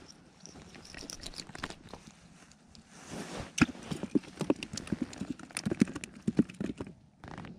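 Hands and winter clothing handling an ice-fishing rod and line: rustling, then from about three seconds in a run of irregular light knocks and taps for several seconds.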